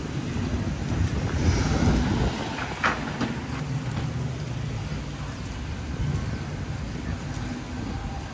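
Steady city street rumble of traffic, with wind noise on the microphone and a brief sharp click about three seconds in.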